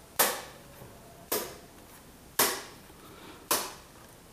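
DGT 2000 digital chess clock's rocker lever pressed from side to side, four sharp plastic clacks about a second apart. Each press ends one player's turn and adds the 30-second increment per move.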